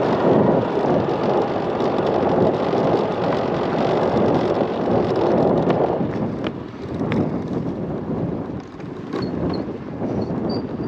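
Wind rushing over the microphone of a moving moped, with the moped running underneath. The rush eases off a little about six seconds in, with a few light knocks.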